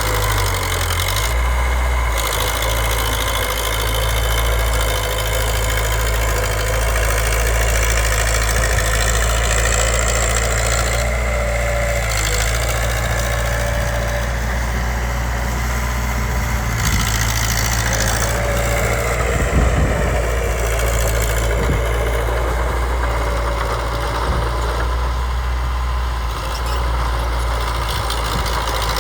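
Diesel engine of a small Komatsu D20P bulldozer running steadily under work, its note shifting briefly in the first two seconds.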